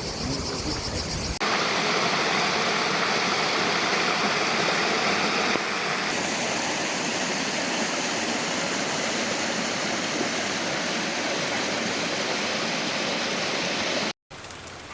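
Waterfall: a steady, even rush of falling water, broken by cuts between shots and a brief dropout near the end.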